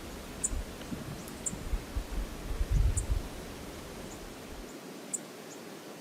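Wind buffeting the outdoor camera microphone, strongest about three seconds in, over a steady hiss of flowing river water. The low rumble stops suddenly near the end. Faint short high chirps come about once a second.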